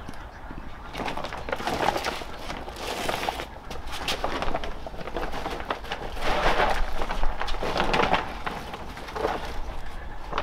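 Hands mixing chopped greens in a pot, then a large plastic sack rustling as its contents are poured in, loudest a little past the middle.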